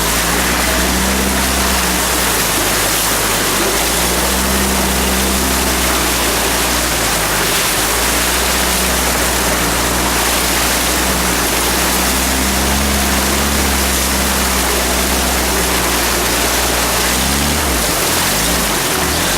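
Motorboat under way: its motor hums steadily beneath a loud, even rush of wind and water. The motor's pitch wavers briefly near the end.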